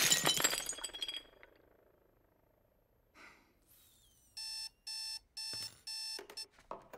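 The tail of a crash, with debris tinkling and dying away within the first second and a half, then quiet. About four and a half seconds in, an electronic alarm sounds a quick run of short, evenly spaced beeps for about two seconds.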